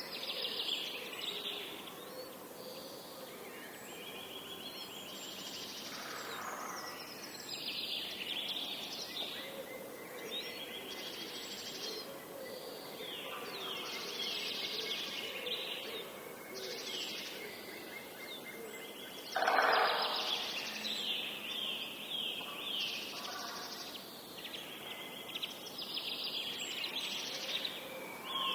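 Several songbirds singing over one another, with repeated high trills and chirps over a steady background hiss, and one louder, lower burst about 19 seconds in.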